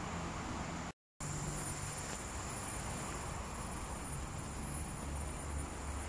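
Steady outdoor ambience: a low rumble with a thin, high insect drone above it, broken by a moment of dead silence about a second in.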